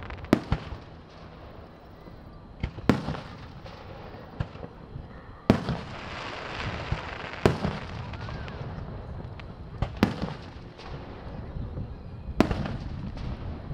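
Aerial fireworks shells bursting: six loud bangs about every two to two and a half seconds, with smaller pops between them.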